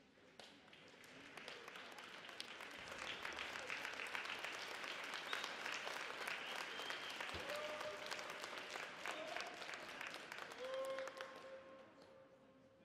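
Crowd applauding, building over the first few seconds and dying away near the end.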